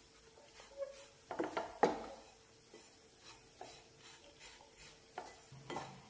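Wooden spatula scraping and knocking against a stainless steel frying pan as crumbly gram flour and ghee are stirred, in uneven strokes, loudest about a second and a half in.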